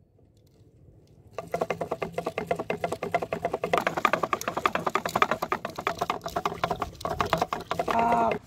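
Plastic fishing-line spool spinning on its axle as line pays out, a fast, even rattle of clicks, about ten a second. Near the end a short voice-like call is heard.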